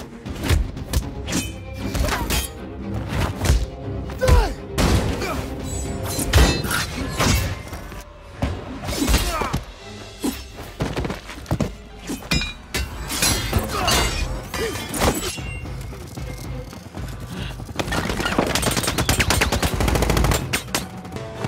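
Action film soundtrack: music score under fight sound effects, a string of punches, thuds and impacts. Near the end, a long rapid burst of automatic gunfire.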